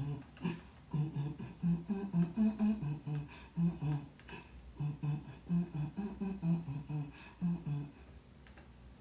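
A woman's voice making a quick rhythmic run of short pitched syllables, a hummed vocal beat, stopping about eight seconds in.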